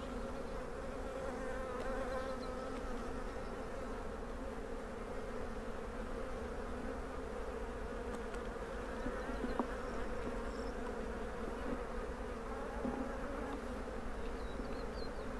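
A honeybee colony buzzing steadily as a steady, even hum of many bees around an opened hive during a frame-by-frame inspection.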